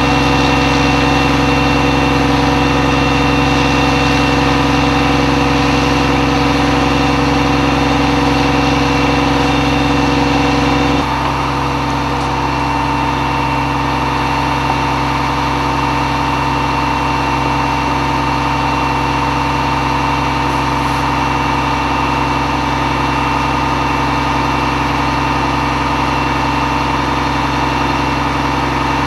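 A heavy diesel engine running steadily and loudly, its tone shifting abruptly about a third of the way through and then holding steady with a high whine.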